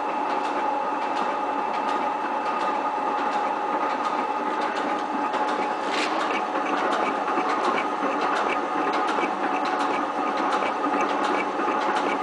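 7305T metal-shaping machine running: a steady motor and gear hum with a regular train of sharp clicks, several a second, and a louder click about six seconds in.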